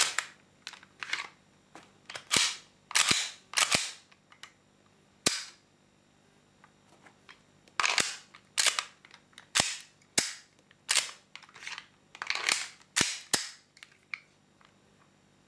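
Metal slide of a full-metal Hi-Capa 5.1 airsoft pistol being racked by hand, snapping home, with the hammer clicking: a run of sharp metallic clacks in uneven groups, with a pause of about two seconds a third of the way in.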